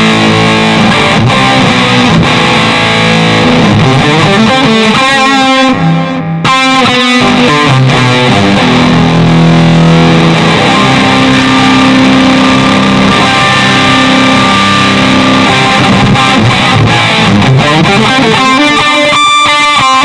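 Electric guitar played through a NUX MG-400 multi-effects unit on its CT Brit Lead preset, giving a distorted lead tone. It plays held notes, with quicker phrases about a quarter of the way in and again near the end.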